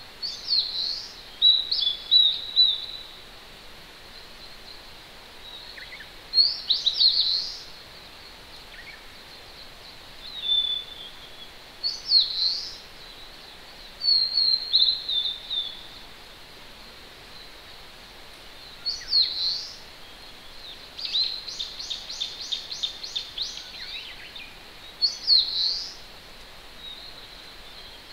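Small songbirds singing short, high phrases every few seconds, among them a rapid run of about nine notes a little past two-thirds of the way through, over the steady hiss of a distant mountain stream.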